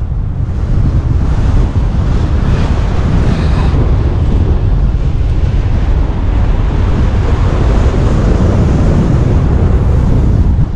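Loud, steady rushing wind noise as the airflow of a paraglider in flight buffets the camera's microphone.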